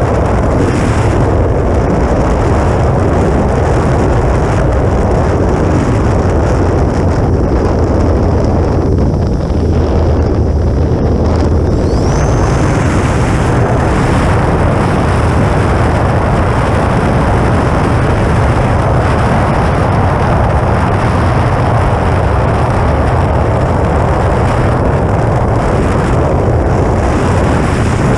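Heavy wind buffeting over a wingtip-mounted action camera in flight, with the thin high whine of the E-flite Air Tractor's brushless electric motor, which glides up in pitch about twelve seconds in and then holds steady.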